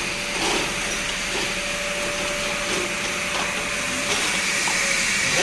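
A small motor running steadily, a constant whine over a hiss.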